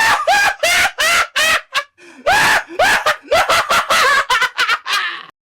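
An exaggerated, manic mad-scientist evil laugh: a run of rapid, high-pitched cackling syllables, a brief break about two seconds in, then a second run that stops shortly before the end.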